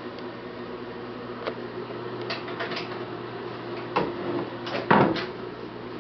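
Several short knocks and clicks over a steady hum, the loudest cluster about five seconds in.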